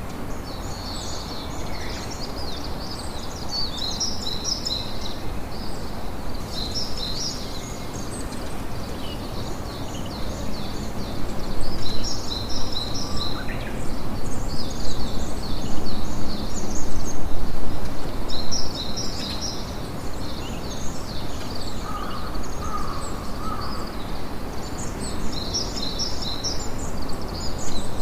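Campfire burning with a steady crackle, louder through the middle stretch, over repeated high chirping calls in the background.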